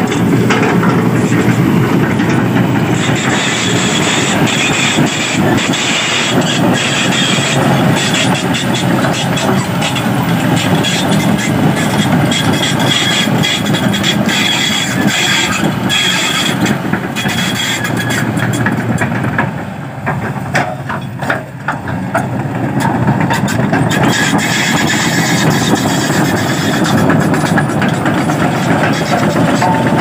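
Kobelco hydraulic crawler excavator's diesel engine running under working load, with metal clanks and rattles from the tracks and bucket. The sound drops briefly about two-thirds of the way through, then picks up again.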